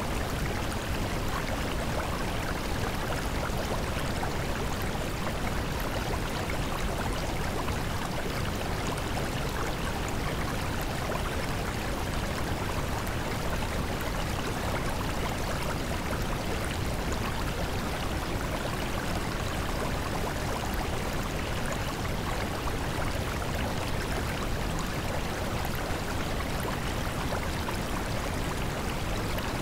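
Steady, even rushing noise, like flowing water or white noise, unchanging throughout. It is the masking background track of a subliminal audio.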